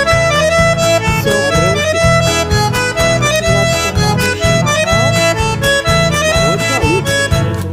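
Instrumental passage of a song: a reed-instrument melody over guitar and a steady bass beat.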